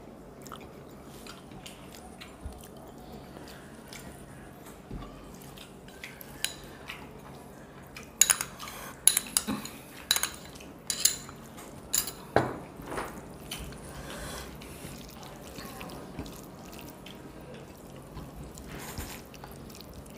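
Tableware sounds of a meal eaten by hand: quiet handling of food on plates, with a run of sharp clinks and taps of small bowls against plates about halfway through.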